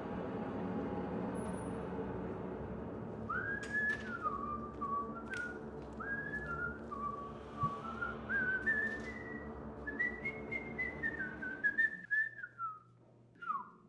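A person whistling a tune that steps up and down in pitch and ends with a short falling slide. A few light knocks and a low steady hum sit underneath, and the hum cuts off near the end.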